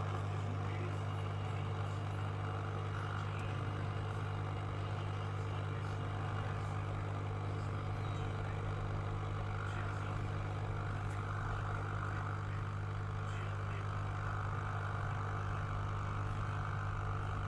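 Hot air rework station blowing steadily over the board to reflow the replacement backlight IC, with a steady low hum underneath. The airflow noise is already running at the start and stops just after the end.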